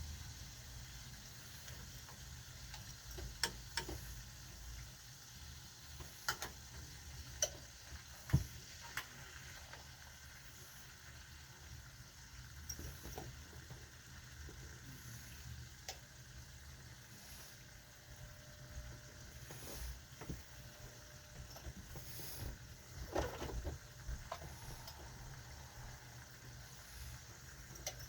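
Food frying in a pan, with a faint sizzle under a steady low hum. Sharp clicks and knocks come now and then, clustered in the first third and again near the end.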